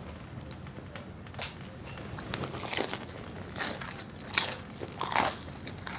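Crisp fried chili fritters (mirchi pakoda) being bitten and chewed in irregular crunches, the loudest about four and a half seconds in.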